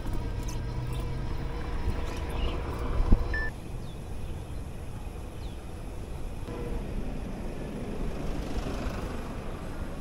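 Electric bicycle being ridden: steady wind and tyre rumble, with a faint steady whine for the first three and a half seconds, a sharp knock about three seconds in, and a short high beep just after it.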